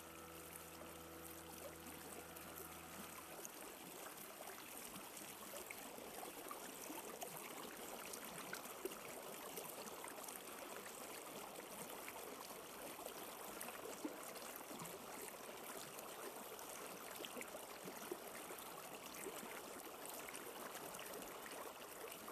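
Faint running water, an even rushing hiss with small scattered drips and ticks, like a stream. A low held musical drone sounds under it for the first few seconds, then stops.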